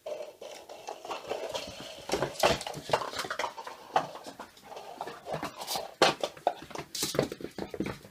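A whippet puppy making repeated short vocal sounds, with its claws clicking on a wooden floor.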